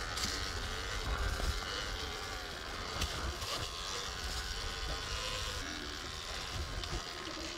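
Surron Ultra Bee electric dirt bike riding along a leaf-covered single track. The electric motor whines and varies with speed, over a steady low rumble and tyre noise on the dirt and leaves.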